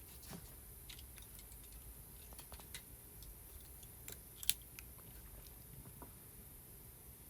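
Faint, scattered small clicks and taps of hands handling a smartphone and its parts, with one sharper click about four and a half seconds in.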